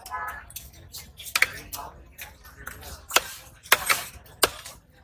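Heavy cleaver-type knife chopping rohu fish flesh on a wooden log block: a series of sharp chops, about half a second apart, mostly in the second half. Faint voices are heard near the start.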